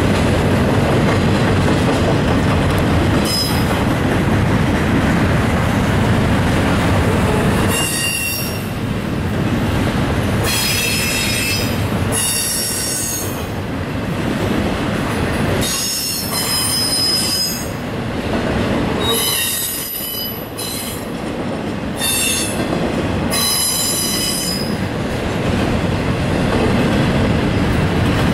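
A long double-stack intermodal freight train rolls past with a steady heavy rumble of wheels on rail. From about eight seconds in, the car wheels squeal in repeated high-pitched bursts that come and go every second or two.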